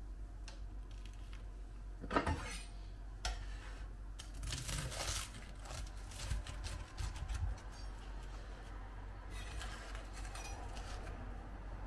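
Kitchen utensils and dishes being handled: scattered light knocks, clinks and short scrapes, the sharpest about two seconds in and again around four to five seconds, over a faint low hum.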